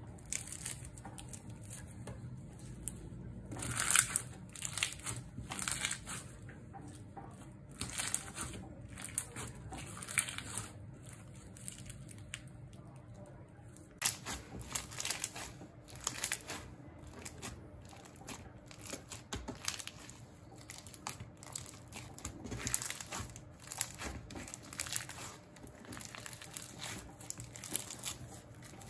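Clear slime packed with fishbowl beads being stretched and squeezed by hand, giving irregular crackling, crunching clicks as the beads rub together and the slime folds.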